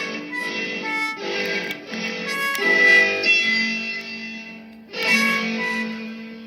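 Instrumental music: a plucked or strummed guitar with long held notes over it, the notes changing every second or so.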